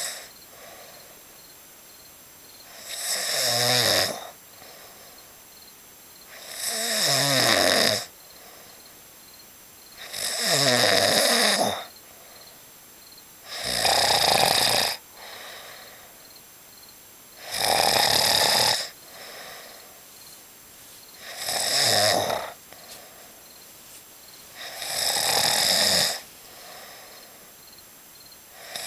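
A man snoring loudly in deep sleep: seven long snores about every three and a half to four seconds, each lasting about a second, several sliding down in pitch at the end, with quiet breathing between them.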